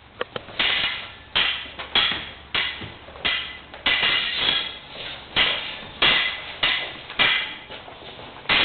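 Steel stage-combat rapiers clashing again and again in a rehearsed sword fight: about a dozen sharp metallic strikes, each ringing briefly, roughly one or two a second.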